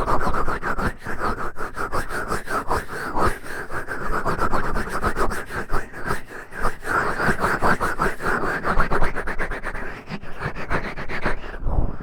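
Close-up finger ear-cleaning: a fingertip digging, scratching and rubbing deep in an ear in rapid, uneven strokes, with a low bump near the end.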